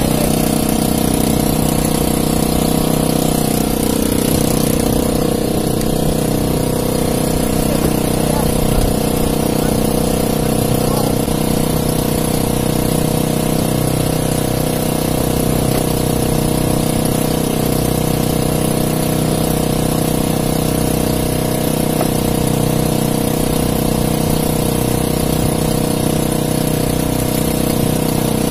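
A small engine aboard an outrigger fishing boat running steadily at an even speed, with no change in pitch.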